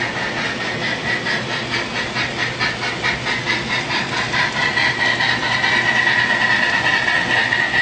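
HO-scale model train running past on a club layout. A steady high whine runs under rapid, even clicking from the train on the track.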